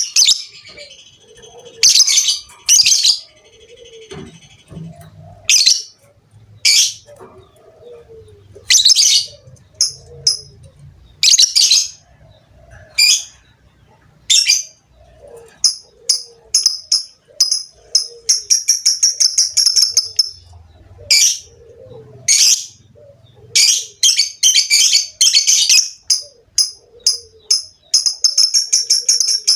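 Lovebird calling: loud, shrill, separate chirps, then in the second half long, fast chattering trills of short chirps, several a second, the drawn-out 'ngekek' song.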